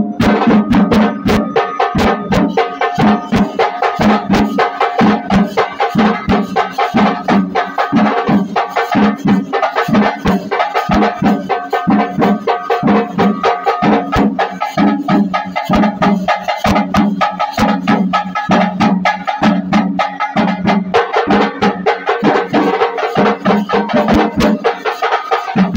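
Drums beaten by hand or stick in a fast, steady rhythm for kavadi dancing, loud and unbroken throughout.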